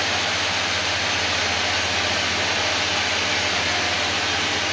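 Commercial reverse-osmosis water plant running: a steady motor hum from its pump under an even rush of water through the system.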